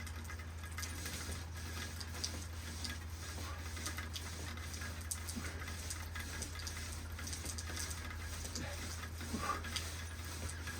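Rain falling steadily, with scattered drops ticking.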